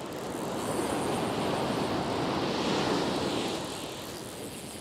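Surf breaking and washing up the sand, swelling to its loudest about three seconds in and then easing off.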